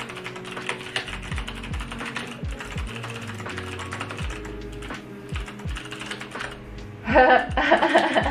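Steady typing on a Dygma Raise split mechanical keyboard, a rapid patter of key clacks, over background music with a beat. A louder voice comes in about a second before the end.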